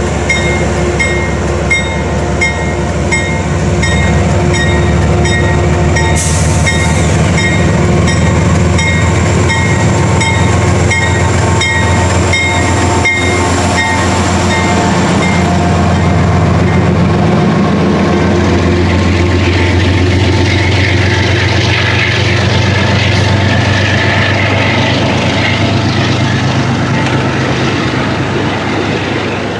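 Amtrak GE Genesis P32AC-DM diesel locomotive pulling away from a stop, its engine running louder from about four seconds in, with its bell ringing steadily about twice a second through the first half. The passenger cars then roll past with a hiss of wheels on rail.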